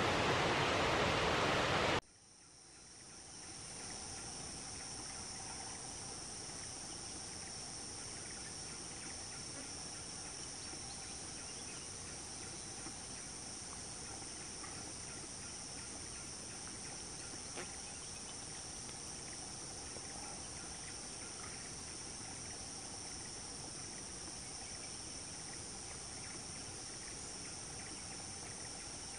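Steady chorus of insects, a continuous high-pitched buzzing in two shrill bands. For the first two seconds a loud rushing noise covers it, then cuts off suddenly, and the insects fade back in.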